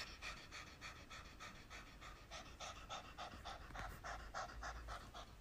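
A cat panting open-mouthed with its tongue out, quick even breaths at about five or six a second.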